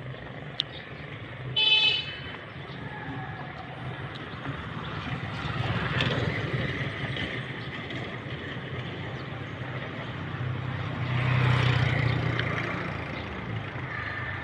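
Road traffic: a motor vehicle running with a steady low engine note and tyre noise, swelling about halfway through and again near the end, with a brief high-pitched horn toot about two seconds in.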